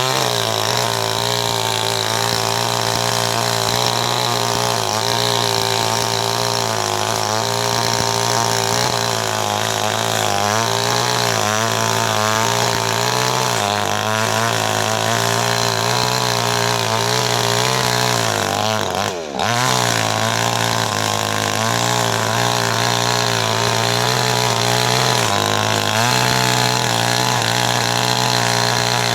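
Chainsaw engine running at a steady speed, with a brief dip about two-thirds of the way through.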